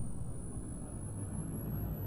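Sound effect of a low, steady rumble with a faint thin whine slowly rising in pitch.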